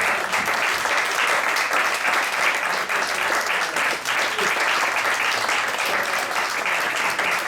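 Audience applauding steadily: a dense, even clapping from many hands.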